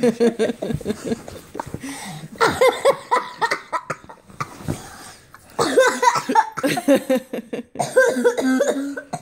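A child laughing hard in four breathless bursts with short pauses between them.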